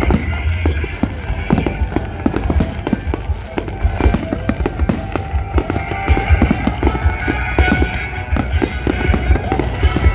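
Aerial fireworks display in full barrage: a dense, unbroken run of shell bursts and crackling, several bangs a second throughout.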